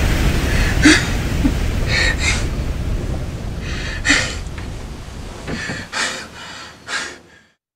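A man gasping for breath in about six sharp, airy breaths, over a low rumble that fades out to silence near the end.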